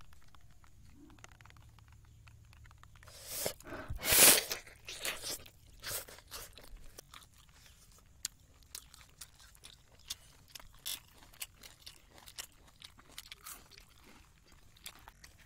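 A man biting and chewing a charred tandoori chicken leg: many small crunching, wet mouth clicks close to the microphone. The loudest moment is a burst of noise about four seconds in.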